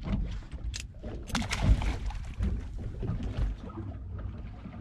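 Water sloshing against a small fishing boat's hull over a steady low rumble, with a few short splashes about a second in.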